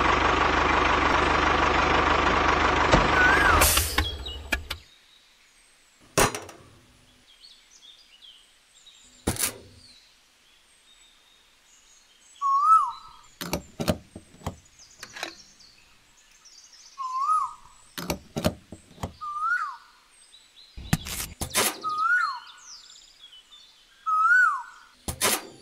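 Steady engine sound of the miniature tractor, fading out about four seconds in. After that come scattered sharp clicks and knocks of small parts being handled, while a bird repeats a short rising-and-falling chirp every few seconds.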